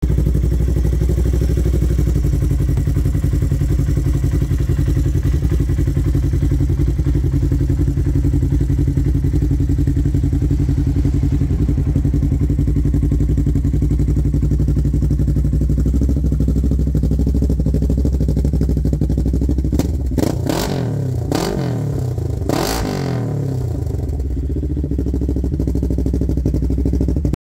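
Polaris off-road vehicle engine idling steadily through a custom stainless twin-pipe exhaust, then blipped three times about twenty seconds in, the revs rising and falling each time before settling back to idle.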